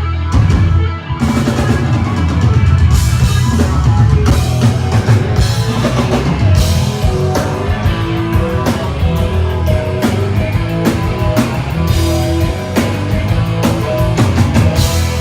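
A rock band playing live: a drum kit keeps a steady beat under bass and electric guitar.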